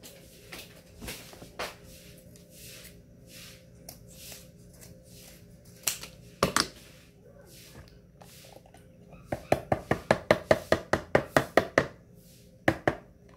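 Sharp knocks and clicks of a metal can being handled and tapped over a plastic mixing bowl of cake batter. Near the end comes a quick run of about fifteen even taps in two and a half seconds, with two more knocks just after.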